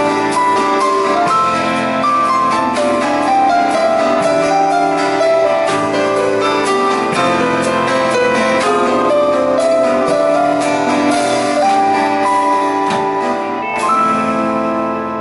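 Live band playing an instrumental passage: a keyboard melody over acoustic guitar, electric bass and drum kit with cymbal strikes. Near the end a chord is held and the music starts to fade.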